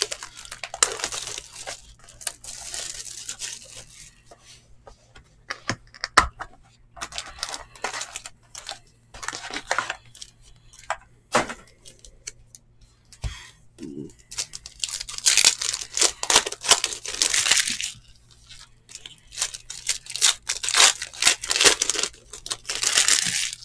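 Foil wrappers of trading-card packs crinkling and tearing as they are ripped open by hand. The rustling comes in several bursts, the loudest in the second half, with a few sharp taps in between.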